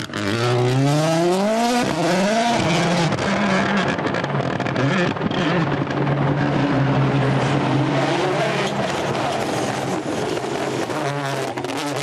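Ford Puma Rally1 rally car's turbocharged four-cylinder engine accelerating hard, revs climbing in quick steps through the gears over the first couple of seconds, then holding a steady high note as the car pulls away; the revs climb again near the end.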